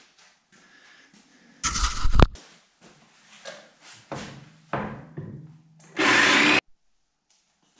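Jigsaw cutting a wooden board in several short runs, loudest about two seconds in and in a steady burst near the end.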